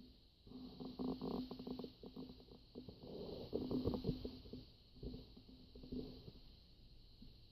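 Rats chewing cheese curds close to the microphone: three bursts of quick chewing clicks, over a steady hiss.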